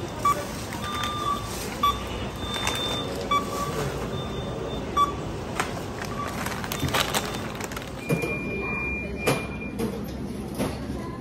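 Supermarket checkout barcode scanner beeping repeatedly as items are scanned, over steady store noise, with knocks and rustles of goods being handled. Near the end one longer, higher tone is held for about two seconds.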